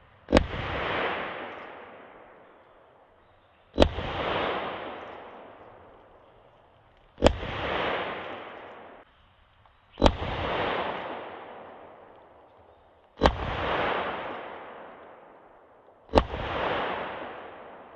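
Six single shots from a .22 LR revolver, spaced about three seconds apart, each sharp crack followed by a long echo that dies away.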